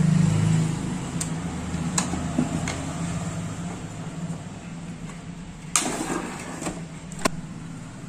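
Handling noise as a CRT TV chassis board and its wiring are moved by hand: a few irregular clicks and knocks, the loudest about six seconds in, over a low steady hum.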